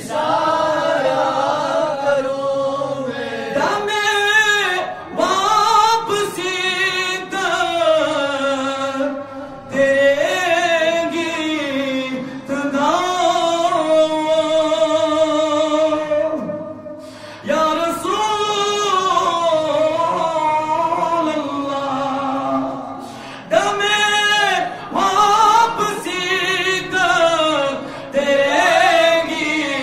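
A man singing an Urdu naat unaccompanied into a microphone, in long melodic phrases with held, ornamented notes and short breaks for breath.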